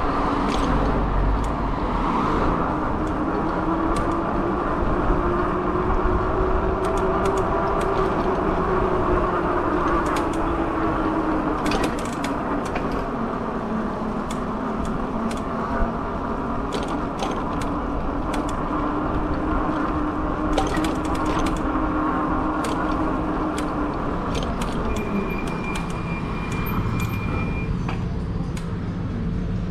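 Fat-tire e-bike in motion: a whining hum from the hub motor and tyres that slowly rises and then falls in pitch as the speed changes, over steady road and wind rush, with scattered clicks. A thin high tone sounds for a couple of seconds near the end.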